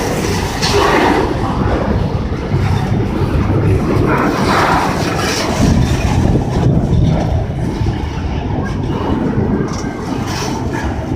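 BNSF intermodal freight train rolling past, its wheels rumbling and clacking over the rails in a steady, loud din.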